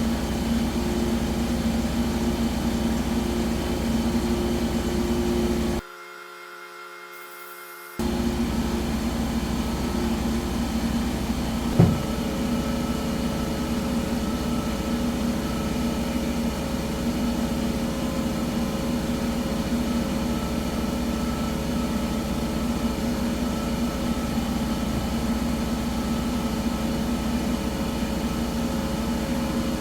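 Steady machine hum with a few held tones. It drops away for about two seconds about six seconds in, and there is a single sharp knock a few seconds later.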